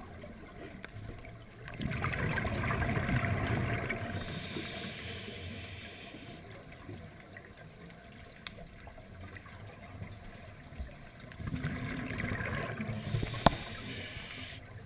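Muffled underwater sound heard through a camera housing: two swells of rushing, bubbling noise a few seconds each, about two seconds in and again about eleven seconds in, typical of a scuba diver's regulator venting exhaled bubbles. A single sharp click comes near the end.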